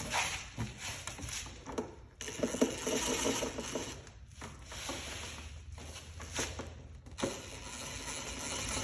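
Hand ratchet clicking in several runs with short pauses between them, as the bolts holding a throttle body are run down and tightened.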